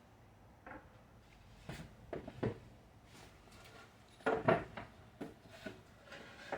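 Handling noises from unpacking a box: a scatter of light knocks and rustles of things being picked up and set down, with the loudest cluster about four and a half seconds in.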